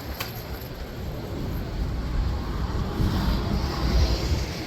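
City street traffic heard from a moving electric scooter, with low wind rumble on the microphone, growing louder in the second half.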